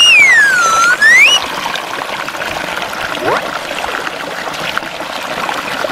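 A small creek waterfall pouring and splashing steadily over rocks and a log. In the first second and a half a loud, high whistle-like tone dips in pitch and rises back up again.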